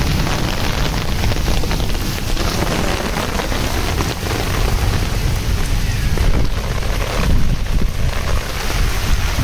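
Hailstorm: hailstones pelting down on sand and hard surfaces in a dense, steady patter of many small impacts, over a low wind rumble on the microphone.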